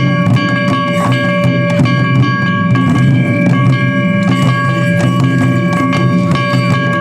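Japanese festival music: irregular drum strikes under a long held high pitched tone.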